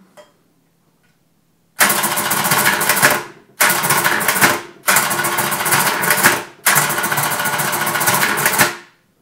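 Brunsviga 11E electromechanical calculator's motor and gear train running in four loud runs of rapid clattering, each one to two seconds long with short pauses between, as it works out successive digits of a division automatically.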